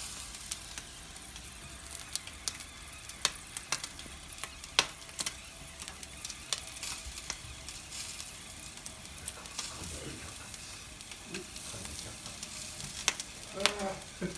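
Yakitori skewers sizzling over charcoal on a commercial gas-and-charcoal grill: a steady hiss with many scattered sharp crackles and pops.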